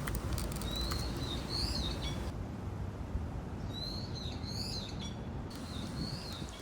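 Small birds chirping: three short bursts of quick, high notes that rise and fall, about a second or two apart, over steady low background noise.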